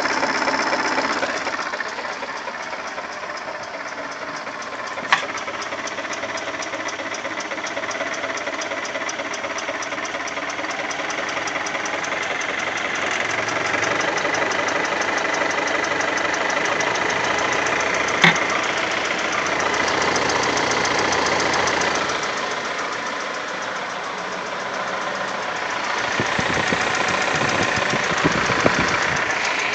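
ZMZ-402 inline-four petrol engine running with a fast, even knocking from inside, whose cause the owner cannot identify. Single sharp clicks stand out about five seconds in, near the middle, and twice near the end.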